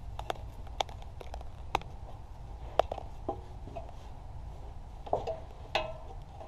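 Scattered metallic clinks and taps of hand tools and shifter parts being handled, a few with a brief ringing tone, over a low steady hum.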